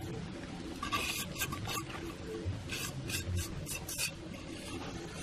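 A hand tool scraping and rubbing on cement in short rasping strokes, about eight of them, bunched between one and four seconds in.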